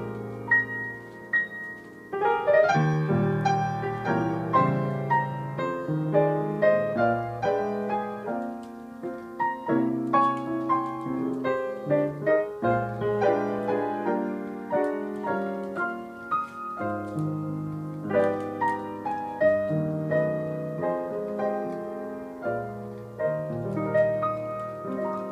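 Grand piano played solo: full chords with a melody line over them, each note ringing on after it is struck. The piano has just been tuned, and this is its test run.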